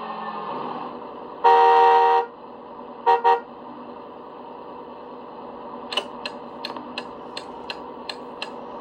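Car sound effects from a LEGO Ghostbusters Ecto-1 light-and-sound kit: a steady engine-running drone under a long horn blast about a second and a half in, then two short horn toots. Later comes a run of about nine quick clicks, roughly three a second.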